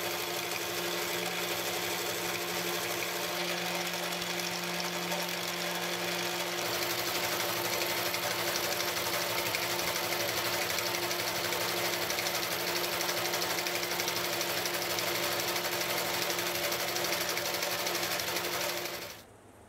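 Metal lathe running with a carbide insert tool taking a facing cut across a spinning 4140 steel bar: a steady machine hum with a constant tone and a hiss of cutting. It cuts off near the end.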